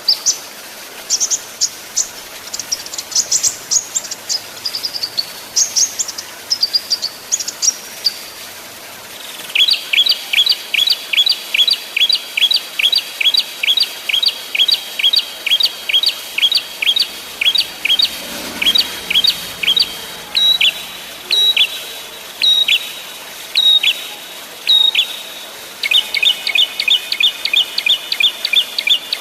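Small songbird singing: high, quick chirps for the first several seconds, then a long rapid series of repeated short downslurred notes, about three a second. The series slows to single sharp notes about once a second, then turns dense again near the end.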